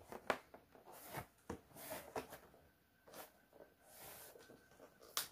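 Cardboard box being opened and handled: scattered scrapes, rustles and light taps of cardboard and packaging, with one sharper knock near the end.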